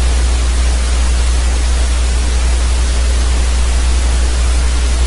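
Steady hiss with a constant low hum underneath, the recording's own background noise with no other sound on top.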